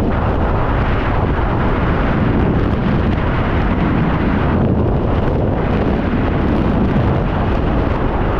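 Freefall wind rushing past a jumper-worn camera and buffeting its microphone, a loud, steady roar of air with no breaks.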